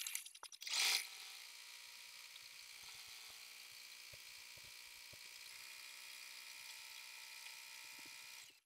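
Embroidery machine stitching, a steady high-pitched mechanical whir that cuts off suddenly near the end.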